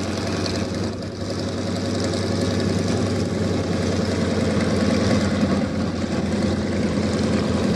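Su-26 (Juka Experimental) aerobatic plane's radial engine running steadily at low power, propeller turning, as the plane taxis. The sound grows a little louder partway through.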